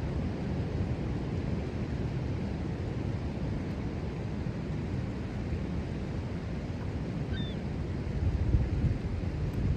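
Ocean surf rumbling steadily on the beach, with wind buffeting the microphone in louder gusts near the end.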